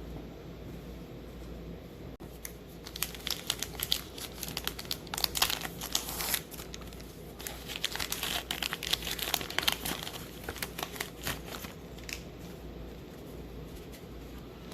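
Baseball card pack wrapper being crinkled and torn open, a dense stretch of crackling from about two seconds in until near the end.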